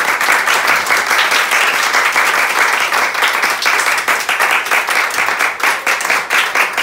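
A small audience applauding, many hands clapping at a steady level.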